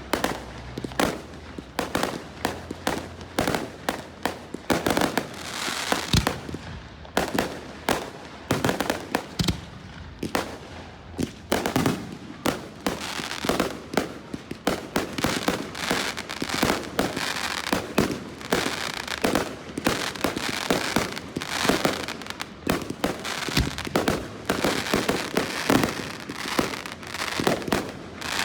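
Fireworks display going off: a continuous, irregular barrage of sharp bangs and pops, several a second, with some crackle between them.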